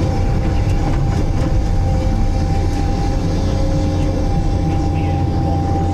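Multidocker cargo-handling machine running steadily, a low engine drone with a thin steady whine over it, as its hydraulic grapple is lowered onto stacked pulpwood.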